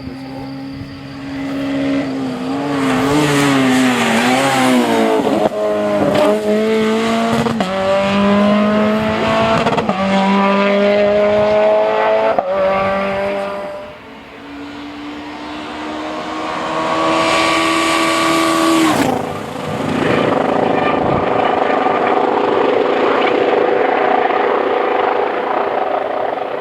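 Rally car engine accelerating hard up through the gears, its pitch climbing and dropping back at each upshift about every two seconds. Further on the revs build again and cut off suddenly, then an engine runs on at high revs.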